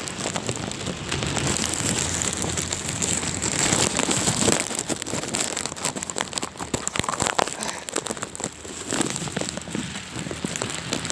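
Heavy rain coming down hard: a dense hiss of drops with many irregular crackling spatters.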